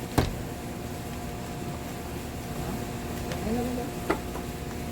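Two sharp knocks, one just after the start and a smaller one about four seconds later, over a steady low hum.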